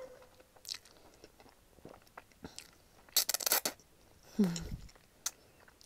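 Close-miked eating sounds: ramen noodles being slurped and chewed, with small mouth clicks, a louder burst of slurping about three seconds in and a short sound falling in pitch a second later.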